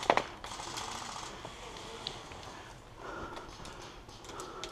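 The last few shots of a rapid airsoft burst cut off right at the start. After that come quieter movement noise and a few faint clicks, one sharper click near the end.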